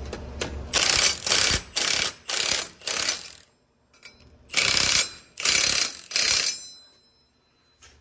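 Cordless impact wrench hammering in short bursts, tightening the nuts on a hub puller tool: five bursts over about three seconds, a pause, then three more.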